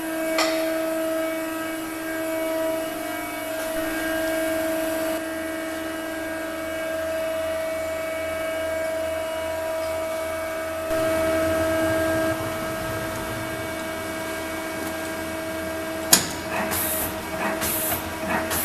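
Mazak Quick Turn Nexus 150-II CNC lathe running with a steady hum of several tones that shift in level and pitch a few times as the machine changes operation. About 16 seconds in there is a sharp click, followed by several short hissing bursts.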